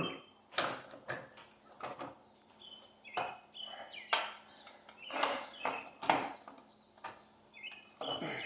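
Irregular sharp knocks and clanks from hand work on a car wheel with tools and lug nuts, as a front wheel is taken off. There are about eight distinct strikes spread unevenly over several seconds.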